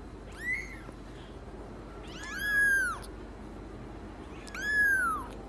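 Young kitten mewing: three high-pitched mews, each rising and then falling in pitch. A short one comes about half a second in, followed by two longer ones about two seconds apart.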